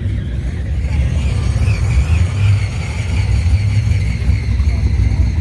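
Low, steady rumble of a car engine running close by, with a faint high whine above it.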